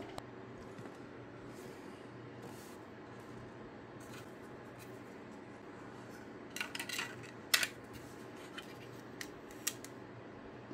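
Hard plastic clicks and clacks from 3D-printed speaker-case parts being handled and fitted together: a cluster of clicks about six and a half seconds in, the loudest sharp click a moment later, then a few lighter ticks, over a steady low background hum.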